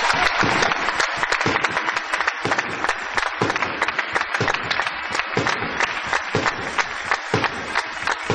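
Crowd applauding, a dense patter of clapping with some single loud claps standing out, easing off slightly toward the end.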